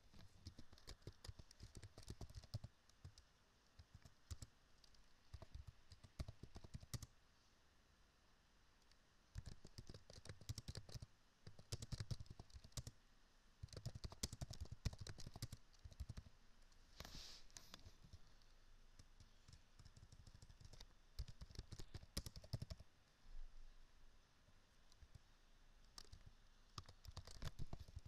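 Quiet computer keyboard typing: fast runs of key clicks in bursts, broken by pauses of a second or two.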